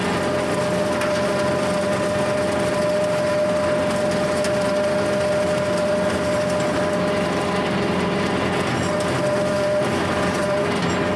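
Kubota L4701 diesel tractor running steadily while its Countyline brush hog (rotary cutter) mows through tall grass: an even engine drone with a steady held tone over it.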